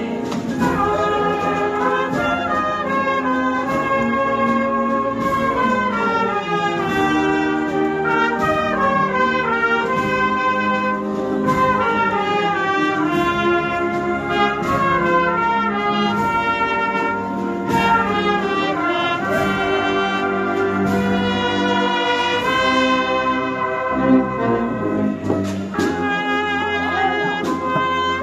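Processional marching band of trumpets and tubas playing a march, the brass carrying a moving melody over regular sharp beats.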